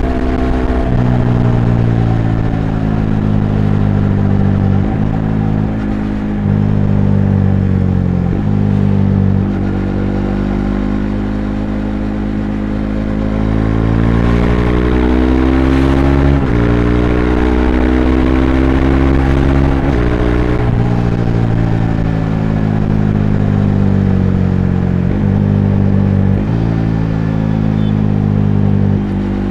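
Bajaj Dominar 400's single-cylinder engine heard from onboard while riding. The engine note climbs, breaks briefly at each gear change and climbs again. It sinks as the throttle eases off around ten seconds in, then pulls up through the gears again.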